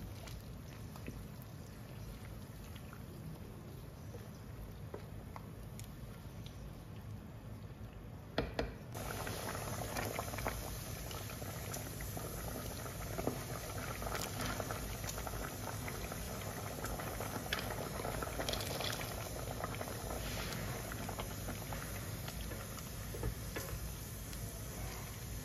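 A pot of porridge with greens boiling on the stove, bubbling steadily, with a few light clicks. The bubbling gets louder about nine seconds in.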